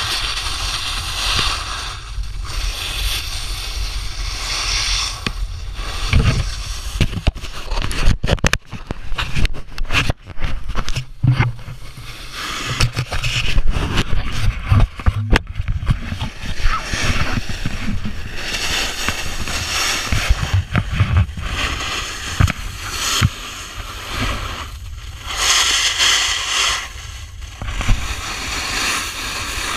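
Snowboard sliding and scraping over soft summer snow in swelling and fading waves, with wind rumbling on the camera's microphone. A run of knocks and thumps comes in the middle.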